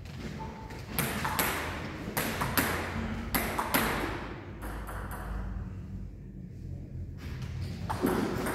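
Table tennis ball clicking sharply against bats and the table: several clicks in the first few seconds, a lull of about three seconds, then the clicks of play starting again near the end.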